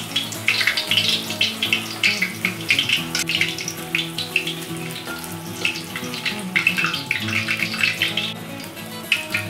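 Hot oil sizzling and crackling around a chives fritter deep-frying in a stainless steel wok, the crackle thinning out in the middle and picking up again near the end. Background music with sustained notes plays underneath.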